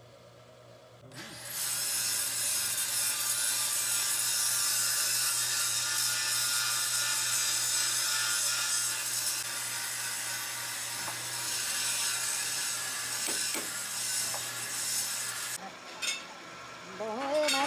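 Metal lathe cutting a steel tube held in its three-jaw chuck: a loud, harsh, shrill scraping of the cutting tool on the metal over the steady hum of the lathe motor. The cutting starts about a second in and stops a couple of seconds before the end.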